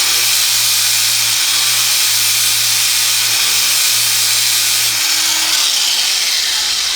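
Cordless angle grinder with a flat disc grinding off a steel chain-link pin, a loud, steady hissing grind. Its lower motor hum drops away about five seconds in while the grinding goes on.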